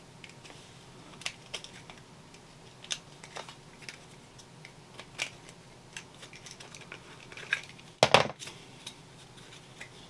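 Scattered light clicks, taps and short scrapes of a small metal hand tool working the edge of a freshly hole-sawn hole in a dash panel. The loudest cluster comes about eight seconds in.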